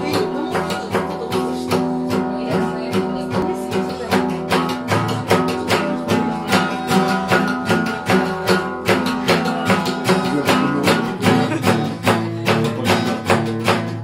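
Steel-string acoustic guitar strummed in a steady rhythm of about three strokes a second, chords ringing between strokes; the chord shifts lower about five seconds in.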